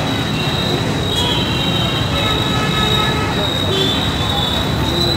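Commercial gas rotisserie grill running: a steady rushing noise under a high, shifting metallic squeal.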